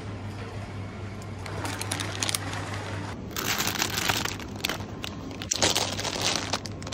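Crinkly plastic bag of chocolate eggs rustling as it is picked up and handled, in irregular bursts from about a second and a half in, over a steady low hum.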